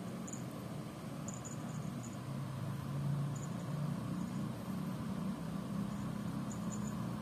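Small bell on a kitten's collar tinkling in short, faint clusters as the kitten moves, over a steady low hum.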